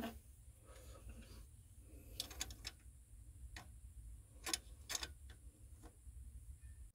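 Faint, irregular clicks and light taps of a hand tool and wire terminal working at the starter's terminal stud, about a dozen scattered over the seconds.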